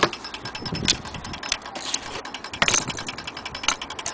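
Handling knocks and clicks, a handful of sharp ones with the loudest near the start and about two and three-quarter seconds in, over a steady fast rhythmic background noise.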